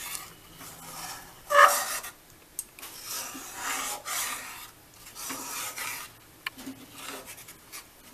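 A spoon scraping and stirring thick rice-and-coconut batter in a steel kadhai, in irregular rasping strokes with the odd click of utensil on pan, loudest about one and a half seconds in. The batter is being worked on the heat until its water cooks off and it dries to a dough.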